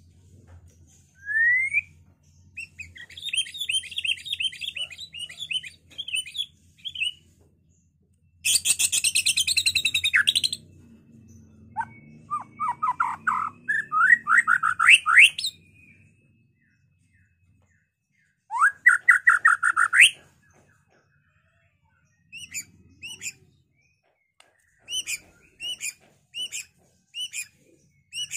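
White-rumped shama singing a varied, loud song: rising whistles and fast trills, a harsh rapid burst about nine seconds in, quick runs of rising notes, then short repeated chirps near the end.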